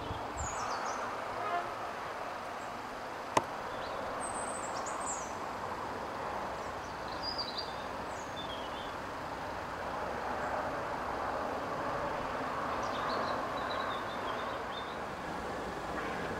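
Countryside ambience: a steady distant rushing, with small birds chirping high every so often and one sharp click about three and a half seconds in.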